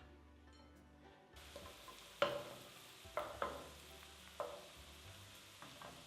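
Food sizzling in a hot pan, the sizzle starting abruptly about a second in, with several sharp knocks and scrapes of a utensil against the pan as the food is stirred.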